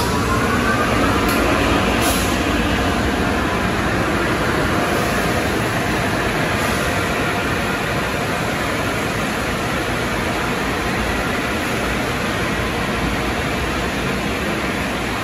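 Automatic car wash tunnel equipment running with a loud, steady rushing noise. A motor's whine rises in pitch during the first second or so.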